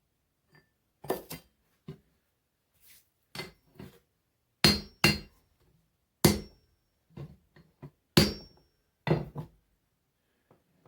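Hammer blows on hot mild steel on an anvil, about fifteen separate strikes at an uneven pace, some light taps and some heavy blows with a short metallic ring, as the axe's wrapped steel is forged closed before welding.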